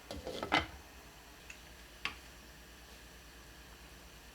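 Sliced radish tipped into a pot of stock: a short clatter and splash at the start, then a few faint light clicks.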